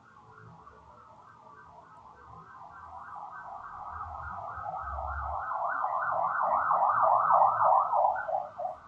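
A rapid electronic-sounding warble, like a car alarm, pulsing about five times a second and growing steadily louder before falling off near the end.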